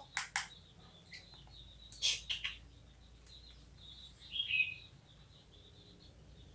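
Faint bird chirping throughout, broken by a few sharp clicks and short noisy bursts: two just after the start and a cluster about two seconds in. One short falling chirp about four and a half seconds in.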